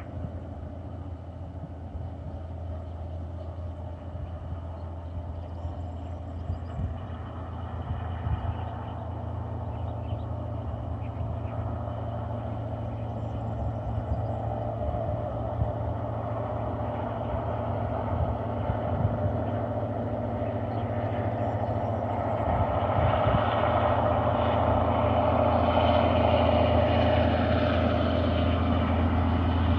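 EMD 16-645E two-stroke V16 diesel of a G26CW-2 locomotive working under load as it hauls a freight train up a grade, a steady low engine drone that grows steadily louder as the locomotive approaches.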